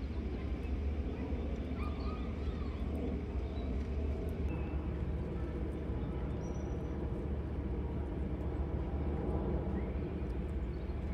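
Outdoor park ambience: a steady low rumble with a few faint, short bird chirps scattered through it.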